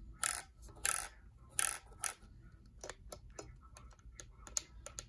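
Plastic clicking from handling a Spektrum pistol-grip RC transmitter as its controls are worked. There are four louder clicks in the first two seconds, then a run of lighter, quicker clicks.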